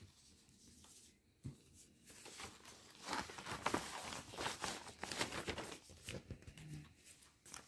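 Paper pattern sheets and kit packaging rustling and crinkling as they are handled, in irregular bursts that start about two seconds in.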